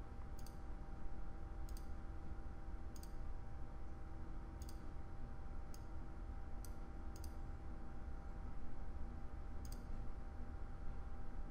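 Computer mouse clicking: about eight faint, sharp clicks spaced irregularly, over a low steady hum.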